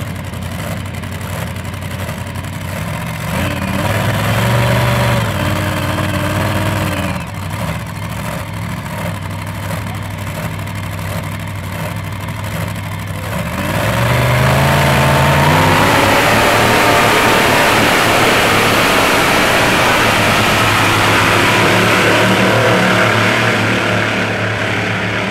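Modified pulling tractor with several supercharged engines idling, revved briefly about four seconds in and settling back. At about fourteen seconds the engines rise to full throttle and stay there, loud and steady, as the tractor drags the weight sled down the track.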